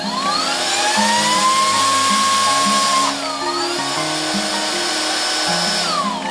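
Handheld electric air duster's high-speed motor whining as it spins up, holding a steady pitch, dipping briefly about halfway through and recovering, then winding down near the end.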